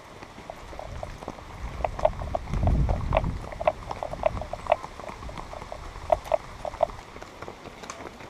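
Horse hooves clip-clopping on a dirt trail, a quick uneven run of sharp clicks, about three or four a second. A low rumble swells briefly around three seconds in.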